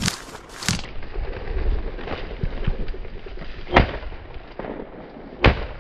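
Two shotgun shots about a second and a half apart, the second near the end, fired at a covey of bobwhite quail as it flushes. Sharper, quieter knocks come at the very start and again under a second in.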